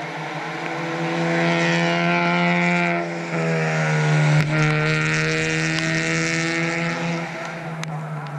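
A four-cylinder club race car's engine, revving higher as it approaches under power and shifting up once about three seconds in, then passing close about halfway through, its pitch falling as it goes by.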